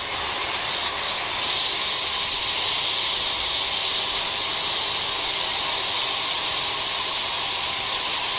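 Hot-air plastic welding gun (Leister Triac BT) blowing hot air with a steady, even hiss.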